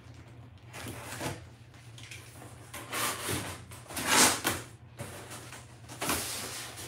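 Cardboard shipping box being opened by hand: the flaps scraping and rustling in several bursts, the loudest about four seconds in.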